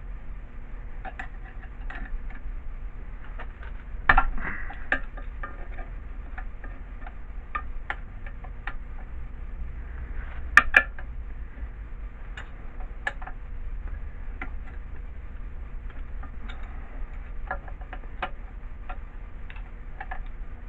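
Wrench at work on the old compressor's cylinder-block bolts: light metallic clicking about twice a second, with two louder metal clanks, about four seconds in and again about ten and a half seconds in.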